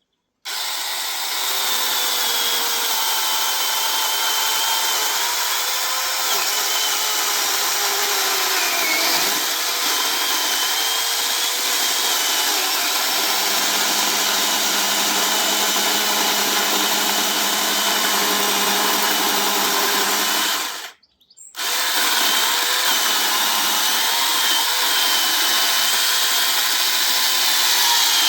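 Battery-powered mini chainsaw running steadily as its chain cuts into a fallen tree trunk. The motor cuts out for under a second about three quarters of the way through, then runs on cutting again.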